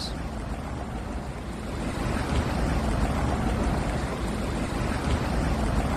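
Steady rushing noise of wind buffeting the microphone over moving floodwater, with a deep rumble, growing a little louder about two seconds in.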